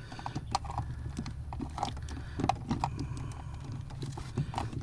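Hand ratchet wrench clicking in short irregular runs with light metallic taps, as bolts are run into the firewall to mount the accelerator pedal bracket.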